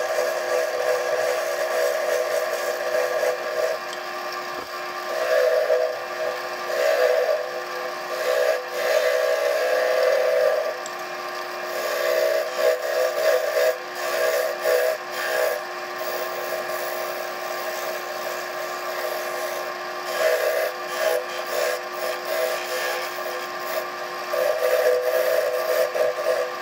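Wood lathe running with a steady whine while a hand-held turning tool cuts a spinning spalted cherry goblet stem. The cutting noise swells and eases in repeated passes, quieter for a few seconds past the middle.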